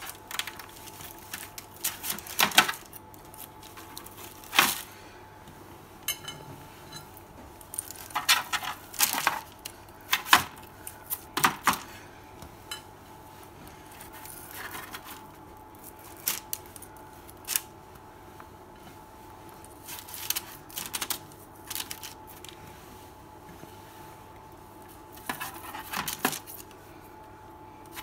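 Knife scraping and tapping against wooden skewers and a plate as grilled beef suya is pushed off the skewers: irregular sharp clicks and taps, some in quick clusters.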